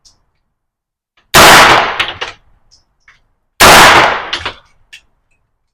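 Two gunshots from a 9mm AR-9 style PDW, about two and a quarter seconds apart, each with a long echoing tail. A few small clinks follow each shot.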